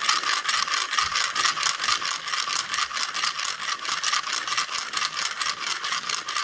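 Steady, high-pitched buzzing rattle of insects in the forest, made of many rapid pulses a second and running unbroken throughout.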